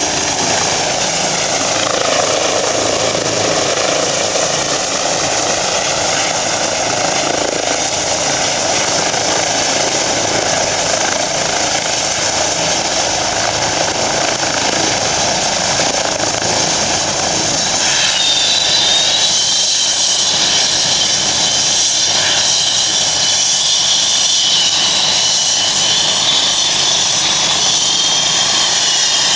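Eurocopter EC 135 twin-turbine helicopter running with its main rotor turning: a steady, loud turbine and rotor noise. A little past halfway the tone shifts and a higher, wavering turbine whine comes in.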